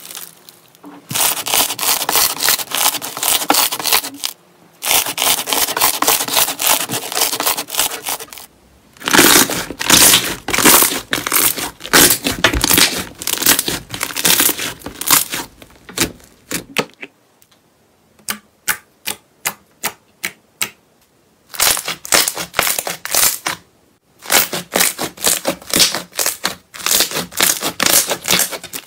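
Hands squeezing, pressing and kneading slime, making fast runs of crackling, popping clicks as air pockets burst. The runs stop and start several times, and for a few seconds just past the middle there are only scattered single pops.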